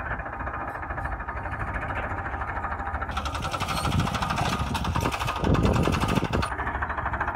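Tractor diesel engines running at idle with a rapid knocking clatter. About three seconds in, the engine sound grows louder and brighter for a few seconds, then drops back near the end.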